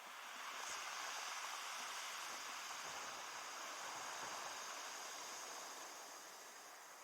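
Surf washing on the beach: a rushing hiss that swells about a second in and slowly fades.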